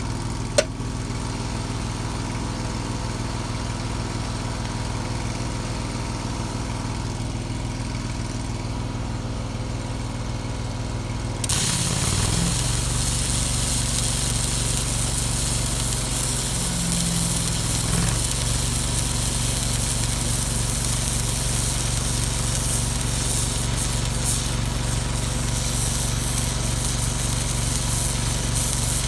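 Shop air compressor running steadily with a low, even beat; about 11 seconds in, a loud steady hiss starts over it and continues.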